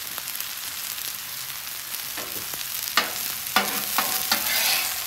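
Food sizzling steadily on a hot flat-top griddle. In the second half a metal spatula clicks sharply against the steel surface four times, then scrapes across it.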